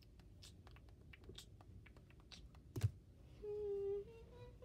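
Plastic action figures being handled and moved on a shelf: scattered small clicks and taps, with one sharper knock about three seconds in as a figure is set down. Near the end, a short hummed two-note "mm-hmm" that steps up in pitch.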